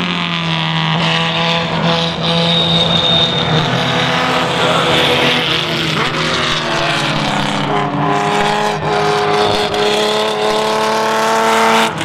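Engines of historic late-1950s sports racing cars at speed, more than one note at once. About halfway through the pitch drops as a car goes by, then a steady note climbs slightly toward the end.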